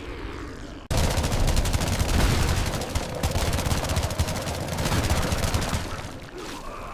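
A rapid, dense rattle of sharp clicks, like machine-gun fire, that starts suddenly about a second in and dies away near the end.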